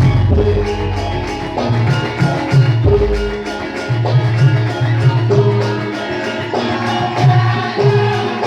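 Live band music with a steady beat, regular percussion hits over a moving bass line and melody.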